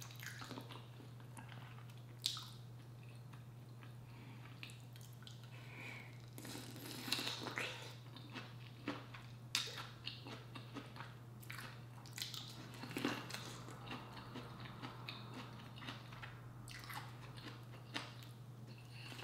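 Close-miked eating: biting into and chewing a piece of corn on the cob coated in seafood-boil butter sauce, with scattered short crunches and clicks. A steady low hum runs underneath.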